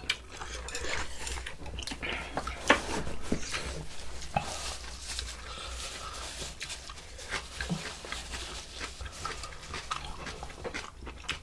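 Close-up eating sounds: people chewing and slurping spicy beef soup, with scattered clicks of utensils.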